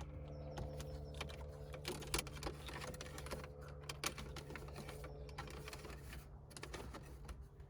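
Small irregular clicks and rustles of an AUX cable being pulled and handled behind a car's interior trim panels, over a steady low hum.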